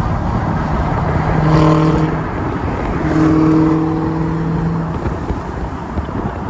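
Car driving at speed: steady road and wind noise, with a flat droning tone twice, briefly and then for about two seconds.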